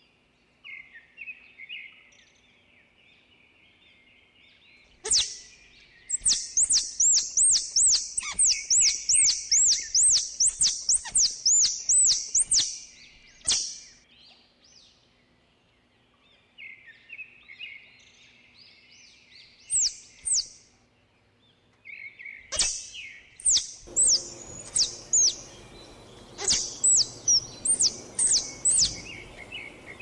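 Ground squirrel giving its alarm call: a rapid run of sharp, high chirps, about four a second, kept up for several seconds. After shorter bursts it starts a second long run near the end.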